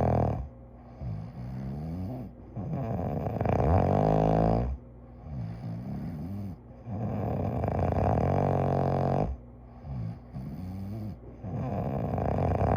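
A sleeping person snoring in a steady rhythm. A loud, rattling snore lasting about two seconds comes roughly every four seconds, three times here, with softer wheezy breathing in between.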